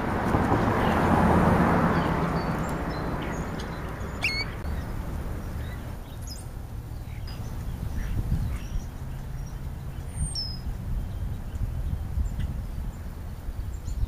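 Outdoor background: a rushing noise swells and fades over the first few seconds above a steady low rumble. Short bird calls come through, the clearest a quick falling whistle about four seconds in and another about ten seconds in.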